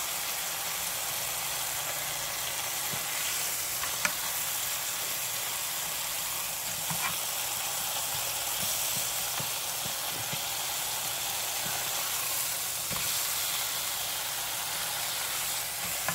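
Sliced smoked picnic ham sizzling steadily as it fries in a hot pan, with a few light clicks of a metal fork against the pan as the slices are moved and turned.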